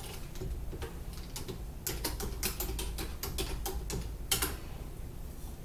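Irregular clicks of typing on a computer keyboard, sparse at first, then a quicker run of keystrokes about two seconds in.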